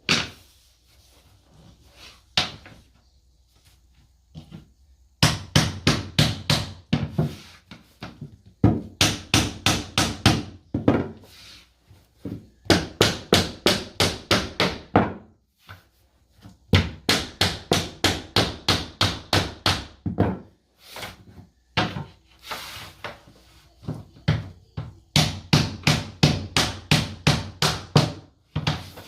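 Hammer tapping laminate flooring planks into place, in runs of quick blows about four a second, each run lasting a few seconds with short pauses between.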